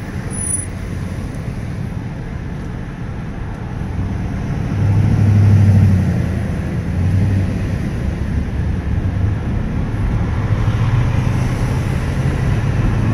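Road and engine noise heard from inside a car's cabin as it moves slowly in freeway traffic. A steady low drone swells for a moment about five seconds in.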